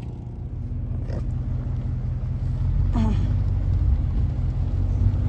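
Lawn mower engine running steadily, under a low rumble of wind on the microphone that grows louder.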